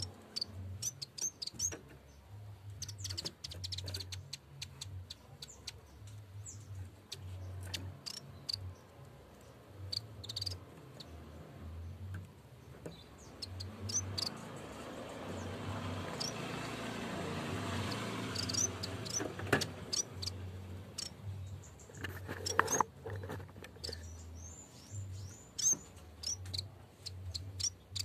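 Yellow-bellied warbler (cikrak bambu) singing: short, high, thin chirps at irregular intervals, with a quick run of curved notes near the end. A hiss swells and fades in the middle.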